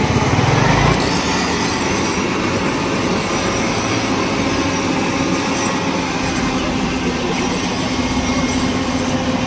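Loud, steady machinery noise with a constant hum, no clear strokes or rhythm.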